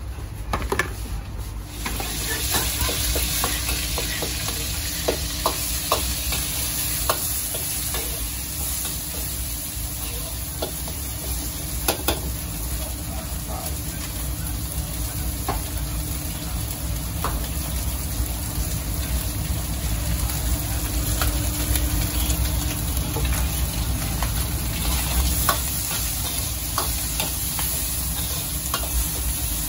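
Food sizzling as it is stir-fried in a wok over a gas burner, with a metal ladle clinking and scraping against the wok many times along the way.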